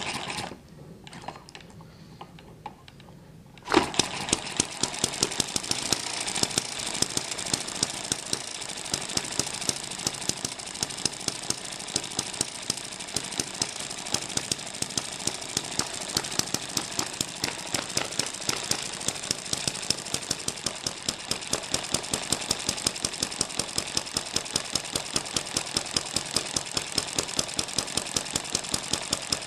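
Eachine ET7 model hit-and-miss gasoline engine starting suddenly about four seconds in, then running steadily under its governor. A light mechanical clatter is broken by a few sharp firing pops a second.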